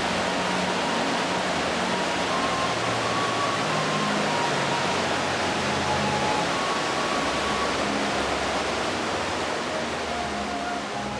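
Steady, even rushing noise of a storm, with a faint melody of music underneath.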